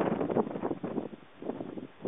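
Wind buffeting the camera microphone in uneven gusts, dying down over the second half.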